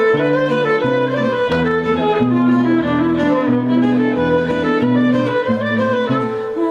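A live band plays an instrumental break between sung verses: a sustained melody over changing bass notes, with no singing.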